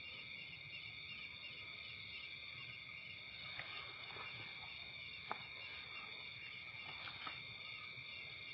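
Steady high-pitched trilling chorus of night insects such as crickets, with a few faint clicks, the sharpest about five seconds in.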